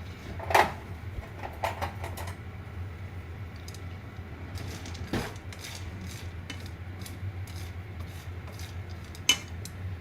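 Scattered clinks and knocks of kitchenware, the loudest about half a second in and another near the end, over a steady low hum.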